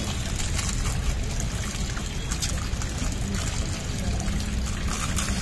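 Water running and trickling steadily.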